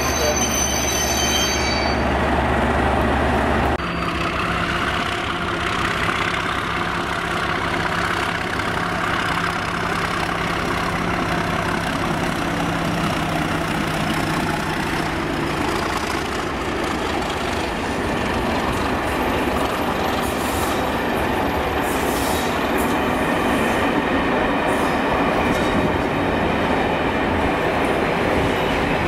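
Class 37 diesel locomotive running as it hauls a train of coaches, its English Electric engine note changing about four seconds in. Steady wheel-on-rail rumble and some wheel squeal from the passing coaches.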